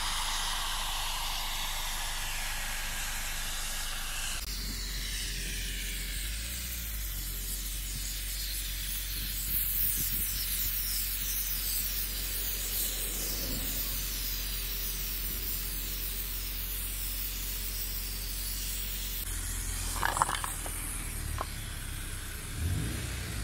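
Aerosol snow-spray can hissing steadily as foam pushes out of its nozzle, with a few short knocks near the end.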